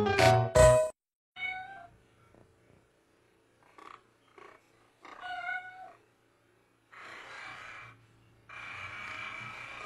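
A cat meowing: a few short calls, then two longer, breathier ones near the end. The calls follow a burst of music that stops about a second in.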